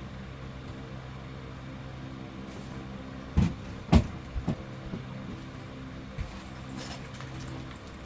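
A steady low hum, with two loud knocks about three and a half and four seconds in, followed by a few lighter taps.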